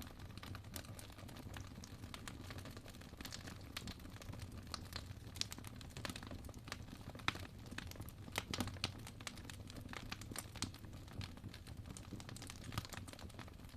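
Wood fire crackling in a fireplace: irregular pops and snaps over a faint low hum.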